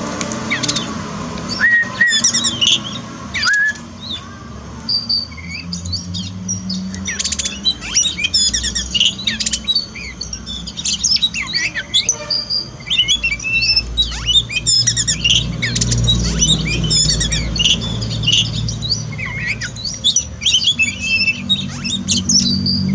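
Songbird song: a dense, continuous run of rapid high chirps, trills and whistled glides. A steady low rumble sits underneath for most of it.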